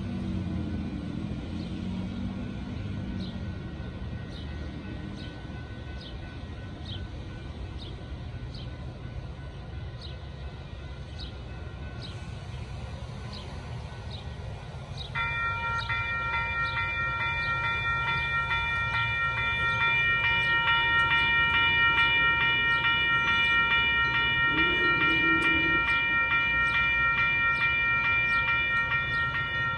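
Railroad grade-crossing warning bell starts suddenly about halfway through and rings at a fast, even pace: the crossing has activated for an approaching train.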